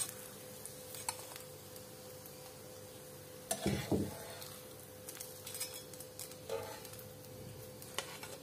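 Steel tongs clicking and scraping in a nonstick frying pan as fried bread toasts are lifted out, over the faint sizzle of the remaining oil. A louder pair of knocks comes about three and a half seconds in, with lighter clicks scattered through.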